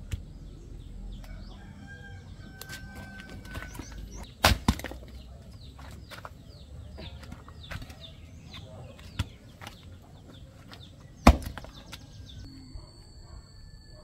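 A few sharp knocks, the first one doubled, about four and a half seconds in, then two more near nine and eleven seconds, over birds chirping many short high notes.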